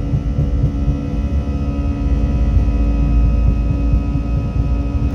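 Airliner's jet engines running at takeoff power with a steady whine, over the low rumble and irregular bumps of the wheels rolling on the runway, heard inside the cabin.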